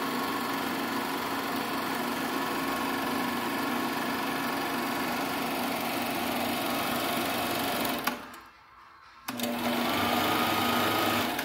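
1953 Keystone K-91 8mm silent-film projector running: a steady mechanical whir from its motor and film transport. About eight seconds in it stops with a click, and a second later starts again, its motor whine rising in pitch and then holding steady, as the selector knob is turned.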